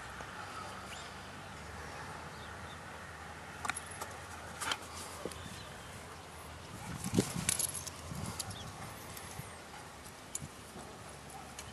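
Scattered light metallic clicks and jingles over a steady outdoor background, busiest about seven seconds in along with a dull thud: a dog's collar and leash clinking as it moves close by.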